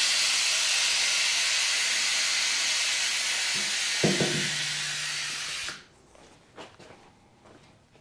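A steady hiss that cuts off abruptly about six seconds in, with a short low sound and a low hum in its last two seconds. No engine is running.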